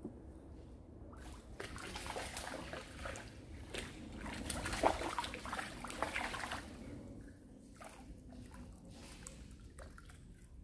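A hooked fish thrashing at the water's surface, a run of irregular splashes that starts about a second in, is loudest near the middle and dies away after about seven seconds.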